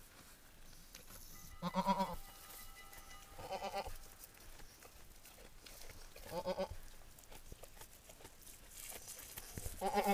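Goat doe in labour bleating four times: short, wavering bleats of about half a second each, a few seconds apart, the last near the end.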